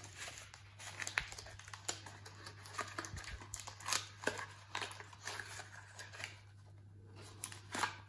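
A cardboard product box handled and opened by hand: the end flap opening and the contents sliding out, with scattered light clicks, scrapes and crinkles of card and packaging.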